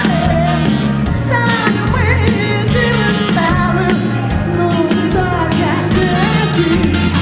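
Loud pop-rock music with a singing voice over bass and a steady drum beat.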